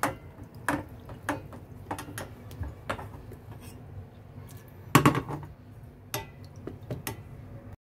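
Silicone spatula tapping and scraping against a stone mortar and the rim of a small steel saucepan, a string of separate clicks and knocks. About five seconds in comes the loudest knock, the saucepan set down on the gas stove's grate, followed by a few lighter taps as the pan is stirred.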